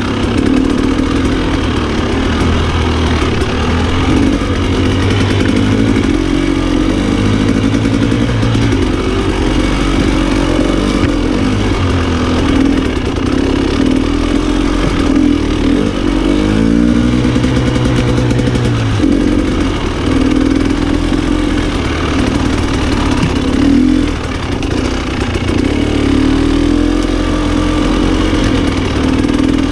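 Off-road motorcycle engine running along a trail, its pitch rising and falling as the throttle is opened and closed, with a steep climb about halfway through.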